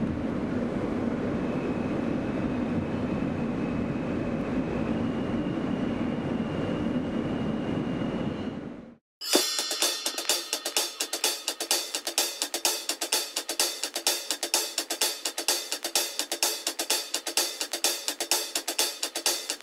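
Steady running noise inside a moving subway car, with a faint high whine, fading out about nine seconds in. Music then takes over: a fast, busy drum beat led by hi-hat and cymbals, with little bass.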